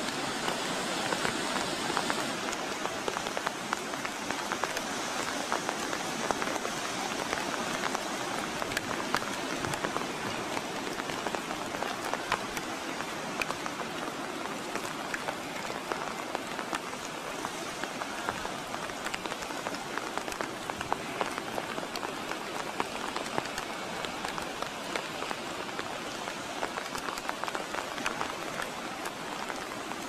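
Light rain pattering steadily: an even hiss dense with small ticks.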